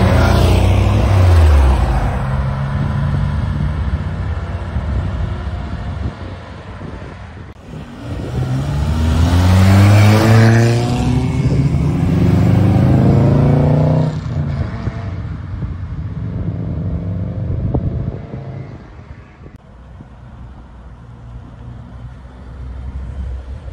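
Classic car engines running on the road: a loud engine falls away in pitch at the start. About eight seconds in, another engine revs up and climbs in pitch, stays loud, then drops off abruptly. Quieter engine noise follows and fades toward the end.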